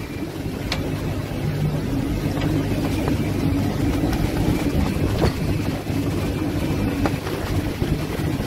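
Sailing yacht's inboard diesel engine running steadily with a low drone while under way, over wind and water noise, with a few light clicks.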